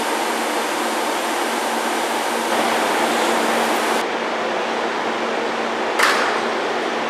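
Steady rushing, fan-like noise of a stationary electric train's air-conditioning and ventilation equipment running at the platform. A faint high hiss cuts off about four seconds in, and a short sharp burst of sound comes about six seconds in.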